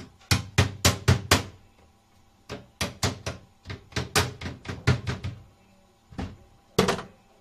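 Sharp knocks from a hand tool striking repeatedly: about five quick blows, a short pause, about a dozen more, then two spaced ones near the end.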